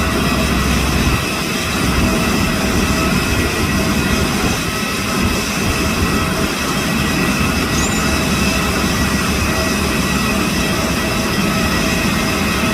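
Jet airliner engines running at idle: a steady rushing noise with high, steady turbine whine, the deepest rumble easing off about a second in.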